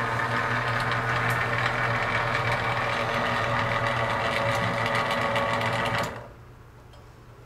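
Crepe-making machine running with a steady mechanical whir, then shutting off suddenly about six seconds in, leaving a low steady hum.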